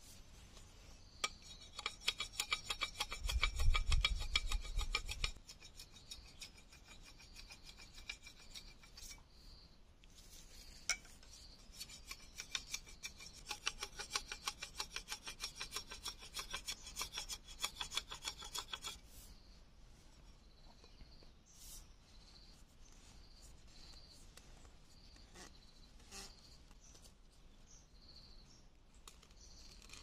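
Knife blade scraping along a thin bamboo pole in rapid short strokes, shaving it down. There are two spells of scraping: a short one near the start and a longer one of about eight seconds midway.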